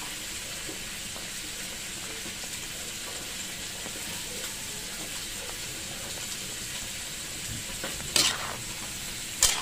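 Chicken liver and gizzard adobo sauce simmering in a pan with a steady sizzling hiss as it heats toward the boil. Two sharp clicks come near the end.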